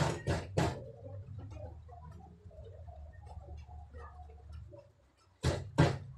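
A coconut half being scraped against a coconut grater blade: a quick run of scraping strokes, about three a second, at the start, then quieter handling, and two more strokes near the end. A steady low hum runs underneath.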